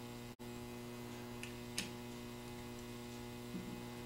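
Steady electrical mains hum with a few faint, short clicks, and a brief dropout about half a second in.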